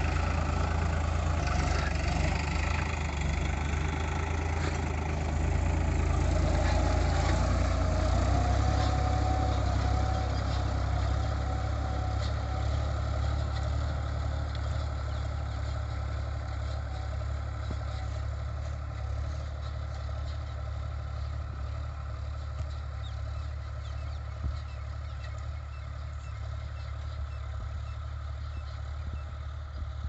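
Sonalika tractor's diesel engine running steadily under load while pulling a disc harrow through the soil, with a deep low hum. It fades gradually as the tractor moves away.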